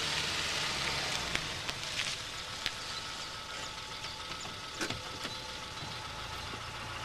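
A car engine running at low speed as the car rolls slowly along a dirt track and pulls up, a steady hum with a few light clicks.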